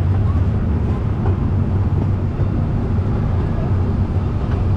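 Casey Jr. Circus Train running along its track, heard from aboard a car: a steady low rumble of the ride vehicle in motion.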